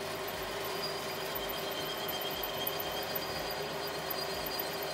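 Metal lathe running, its chuck spinning a workpiece as the tool turns it under flowing coolant. A steady machine hum and hiss, with a few high steady tones over it.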